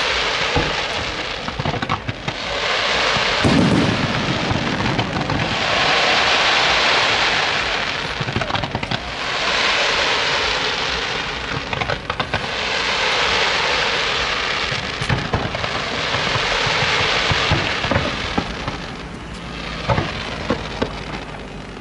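Aerial fireworks display: about five waves of dense crackling hiss, each two to three seconds long, with a low bang about three and a half seconds in and separate sharp pops near the end.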